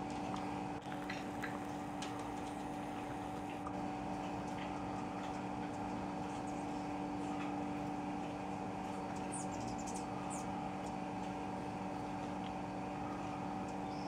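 A steady hum made of several constant tones, with faint high squeaks and ticks over it and a short cluster of high squeaks about two-thirds of the way through.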